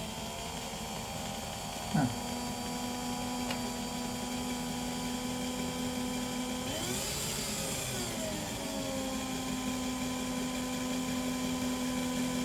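Small electric drill fitted with a 0.5 mm micro bit, drilling into a broken drone arm and running with a steady whine. About seven seconds in, its pitch dips and then recovers as the bit loads up.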